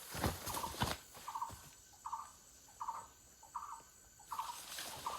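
A bird's short chirping call, each a quick triple note, repeated six times at an even pace of about one every three-quarters of a second, after a few sharp knocks or steps in the first second.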